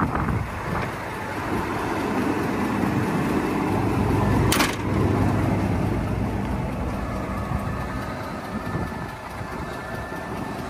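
Scania R 410 LNG truck idling with a steady low rumble, mixed with wind rumbling on the microphone, and one sharp click about four and a half seconds in.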